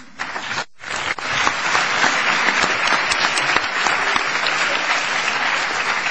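Large audience applauding: a few claps at first, swelling within about a second and a half into steady applause.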